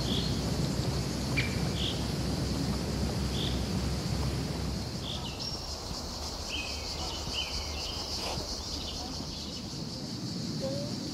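Steady high-pitched insect buzz, typical of cicadas in Provençal pine woods, with short bird chirps scattered through and a low steady rumble underneath.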